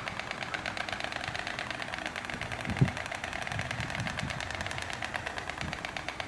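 White storks clattering their bills: a fast, steady rattle of dry knocks. A single low thump about three seconds in.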